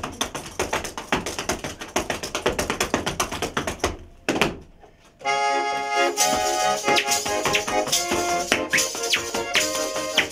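Spoons clattering in a fast rhythm, then a short lull; about five seconds in a garmon (Russian button accordion) starts playing sustained chords and a tune, with short rising whistled notes near the end.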